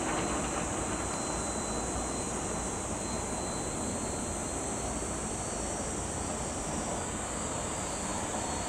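The twin jet engines of a Boeing 767-300 running at low power as the airliner rolls slowly on the runway after landing: a steady distant rumble and hiss, with a constant high-pitched hiss over it.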